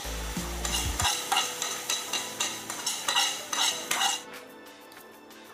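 Marinated chicken sizzling in a hot oiled pan while a wooden spatula scrapes it out of a bowl and stirs it, in a run of short strokes. The strokes stop about four seconds in, leaving a quieter sizzle.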